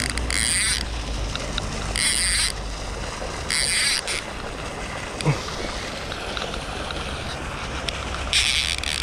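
Baitcasting reel whirring in four short bursts while under load from a hooked Chao Phraya catfish, over a steady wind rumble on the microphone. A single sharp knock about five seconds in.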